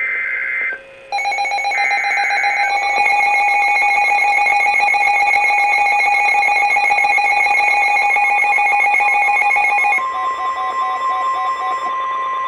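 Emergency Alert System broadcast tones: buzzy digital SAME header bursts repeated with short gaps, overlapped from about a second in by a loud steady alert tone. About ten seconds in it switches to a single steady higher tone, the NOAA Weather Radio warning alarm tone that precedes a warning message.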